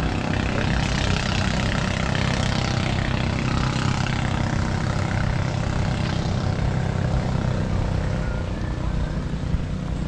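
A motor engine running steadily, a continuous low drone with no clear change over the few seconds.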